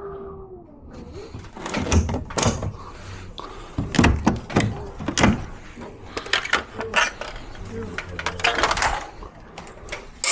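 A string of sharp, irregular knocks and clatters of objects being handled, with faint voices.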